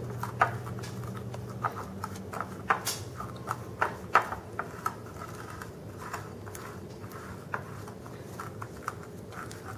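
A black-coated whisk stirring a thick cornstarch, flour and water paste in a ceramic bowl, its wires tapping and scraping against the bowl in irregular clicks, about one or two a second.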